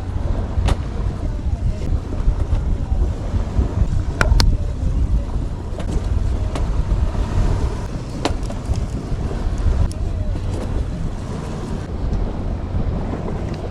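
Wind buffeting the microphone in a steady low rumble, with surf behind it. Over it come a few sharp scraping clicks of a flint striker being struck to light hemp tinder: a close pair about four seconds in and another about eight seconds in.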